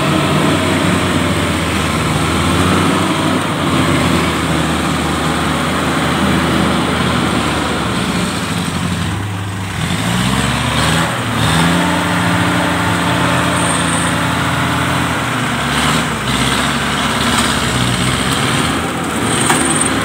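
Off-road 4x4's engine held at high revs as it climbs a steep muddy rut, straining under load, with the revs dipping briefly about halfway through and then rising and holding again.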